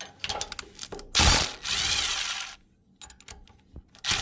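Hand ratchet wrench clicking on metal, with rasping bursts as it is worked. There are scattered clicks at first, then a longer burst from about a second in, and another right at the end.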